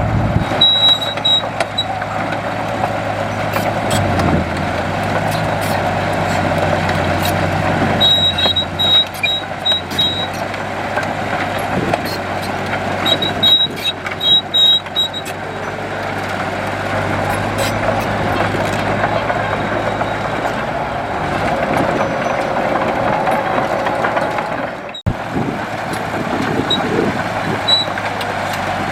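Heavy diesel earthmoving machinery running steadily. A reversing alarm gives runs of short, high beeps, about three a second, several times over.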